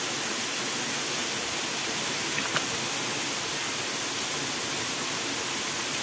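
Waterfall pouring into a pool: a steady, even rush of falling water, with one small click about two and a half seconds in.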